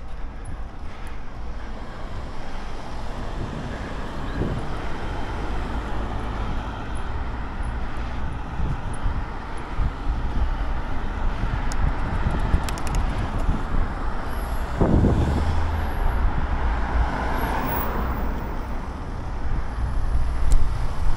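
Steady rush of wind on the microphone and road noise from a bike being ridden along a street, with a louder low buffet about 15 seconds in.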